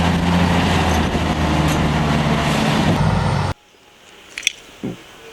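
Truck engine sound, running steadily, then cutting off abruptly about three and a half seconds in; a few faint clicks follow.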